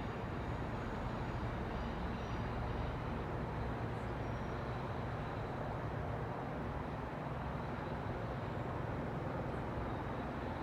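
Freight train rolling past, a steady rumble of wheels on rail with faint high squeals.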